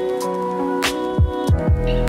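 Background music with a steady drum beat over sustained tones.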